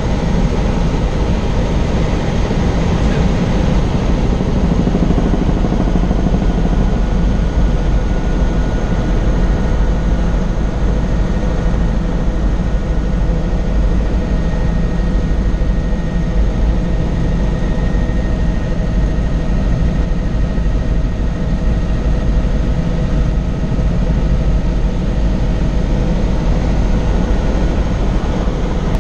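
Helicopter in flight, heard from inside the cabin: a loud, steady rotor and engine noise with a strong low rumble and a few steady high-pitched whines.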